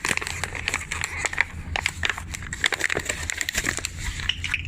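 Rustling, crinkling and many small clicks of hands handling a new pull-start rope and the open recoil starter of a generator, over a steady low hum.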